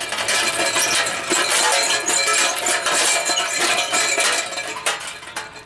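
A hanging galvanized metal can on a chain, a garden sound-sculpture instrument, shaken by its chain: continuous metallic rattling and clanking with ringing tones, dying away near the end.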